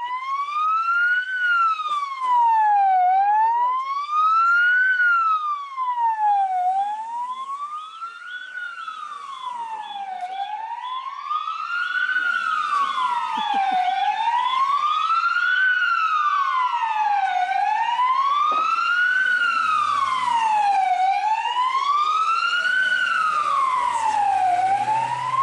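Ambulance siren wailing, its pitch slowly rising and falling in a steady cycle of about three and a half seconds.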